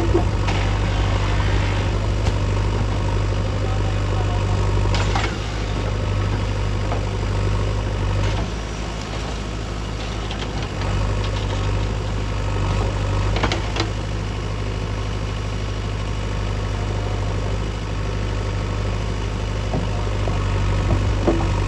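JCB 3DX backhoe loader's diesel engine running steadily with a deep low rumble, broken by a few short sharp clanks.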